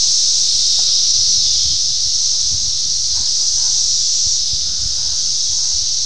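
Dense chorus of 17-year periodical cicadas (Brood X), many singing close by: a loud, steady, high-pitched buzzing drone that never lets up.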